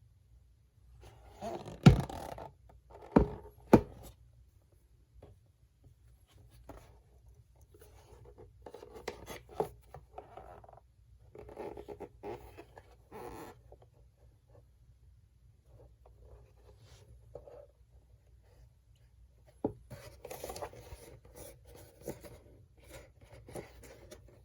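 Hands handling tools and a plastic tool tray: three sharp knocks about two to four seconds in, then bouts of scraping and rustling as things are moved about.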